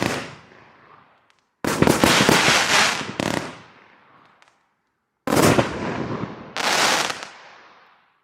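Riakeo Pyro Addict 1 firework going off: two volleys of sudden bursts about four seconds apart, each followed by dense crackling that dies away over a couple of seconds.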